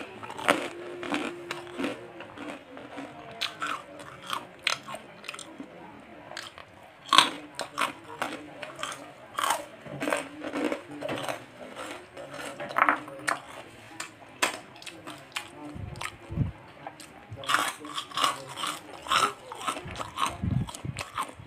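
Crisp fried onion crackers (kue bawang) coated in spicy tomato sauce, bitten and chewed close to the microphone: a long run of sharp crunches. Two low thumps come in the last few seconds.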